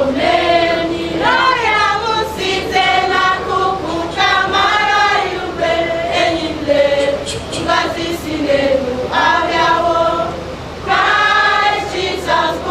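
A choir singing a Christmas carol, its voices holding long notes with pitch glides between them.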